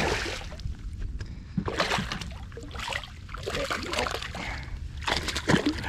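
Hooked smallmouth bass splashing at the water's surface beside the boat as it is reeled up to the side, in several irregular bursts.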